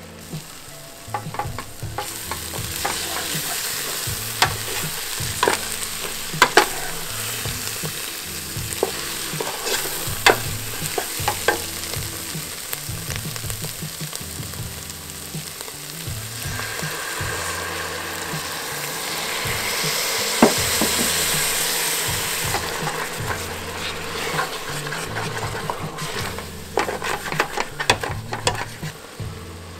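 Sliced onions sizzling as they caramelize in a stainless steel pot, stirred and scraped with a wooden spatula that knocks sharply against the pot's side again and again. The sizzle grows louder past the middle, then eases near the end.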